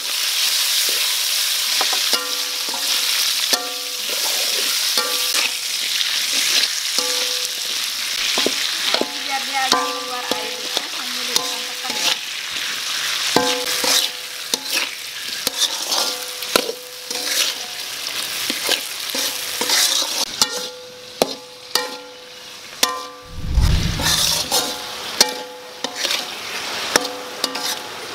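Chili pieces frying in hot oil with shrimp paste in a metal wok, a steady sizzle, while a metal spatula stirs and scrapes them and clinks against the pan. The sizzle thins out in the last several seconds, and there is a single low thump near the end.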